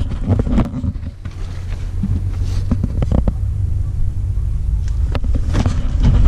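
Footsteps crunching on gravel and knocks from handling the camera, over a steady low rumble.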